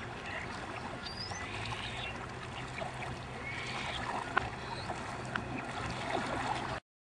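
Kayak paddle working gently in calm water: soft trickling and dripping with small splashes, cutting off suddenly near the end.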